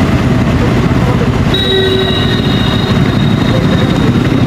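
Bajaj Pulsar N250's single-cylinder engine running through its stock exhaust while riding. From about a second and a half in until near the end, a high, steady whistle-like tone rides over it.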